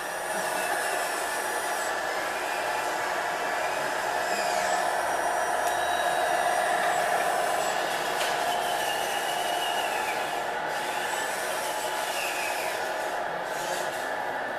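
Steady noisy din of radio-controlled model trucks and machines running in a hall, their motors and sound modules going together. It swells a little around the middle as a model truck drives close by.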